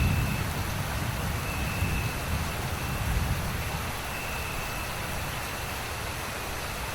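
Steady rain falling, with a low rumble of thunder that fades away over the first few seconds. A faint high note recurs about every two seconds over the rain.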